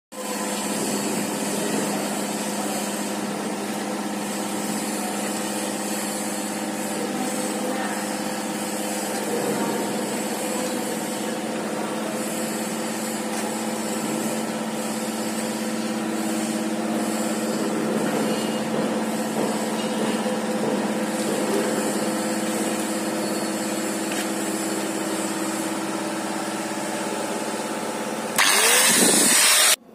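Steady drone of running machinery with several fixed tones. Near the end a louder, harsher noise lasting about a second and a half: an angle grinder's disc working on the steel header.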